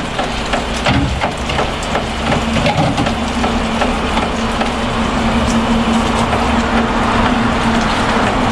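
Water running from a broken pipe in a steady rushing stream, with a few knocks and clatters in the first few seconds.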